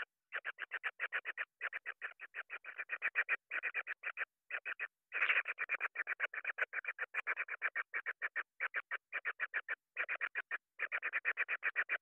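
Kingfisher nestling giving a fast series of harsh calls, about seven a second, in runs broken by short pauses, typical of a chick begging for food. The loudest run comes about five seconds in.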